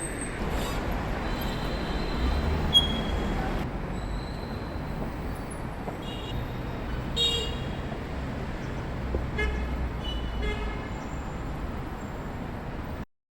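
City street traffic rumbling steadily, with several short vehicle horn toots over it. A sharp click sounds about three seconds in, and the sound cuts out abruptly near the end.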